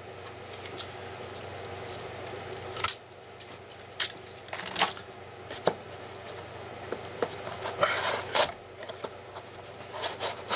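Hands working the attachment heads of a cordless multi-tool: scattered plastic clicks and knocks with rubbing and rustling as a head is taken off and another pushed on, with some effort to seat it.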